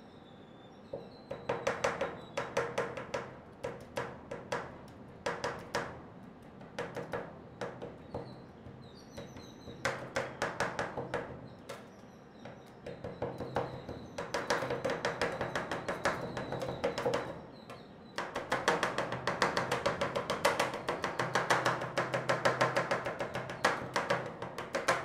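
Two metal spatulas chopping mango pieces into the cream base on a steel ice-cream-roll cold plate: rapid clattering taps of the blades against the plate, in runs of several seconds with short pauses between.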